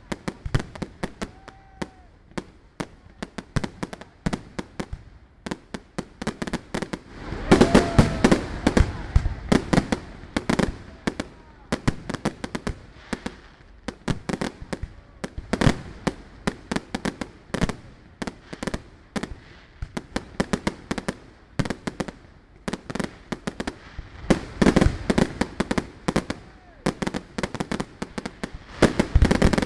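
Fireworks display: a continuous run of aerial shell bursts and crackling reports, thickening into dense volleys of bangs about seven seconds in and again near the end.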